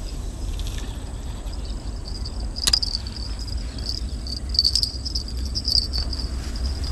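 Insect chorus, a steady high-pitched buzz that swells and pulses, over a low rumble, with one sharp click a little under three seconds in.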